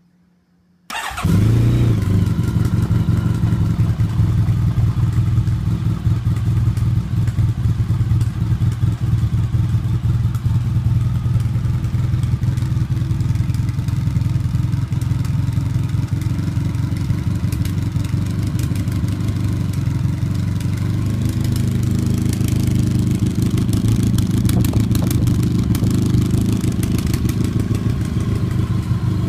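Honda VFR1200's V4 engine starting through a Delkevic carbon slip-on muffler: it catches about a second in and settles into a steady idle.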